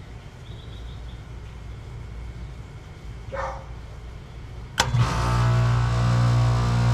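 Rheem condensing unit starting on a thermostat call about five seconds in: a sharp click as it switches on, then a loud steady electrical hum as the compressor and fan run. The start-up shows that the replaced control board is working.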